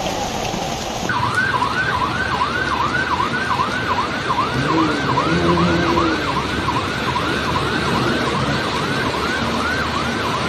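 Emergency vehicle siren in a fast yelp, sweeping up and down a little over twice a second, over a steady rushing noise. Before it, about a second of rain.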